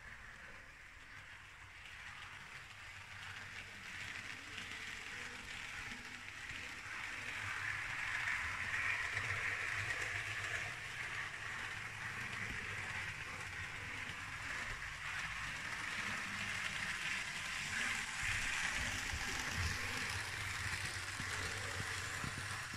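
Model diesel multiple unit running along the layout, its motor whirring and its wheels rolling on the rails in a steady rushing noise that grows louder over the first several seconds as the train comes closer, then holds.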